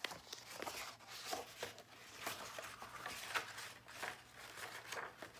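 Picture books being handled: irregular rustling, brushing and soft scraping of paper pages and covers being shuffled and flipped.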